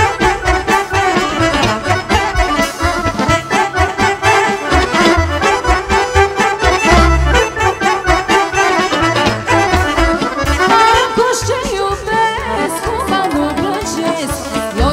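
Accordion-led Vlach folk dance music played by a wedding band, with low bass thumps under the melody.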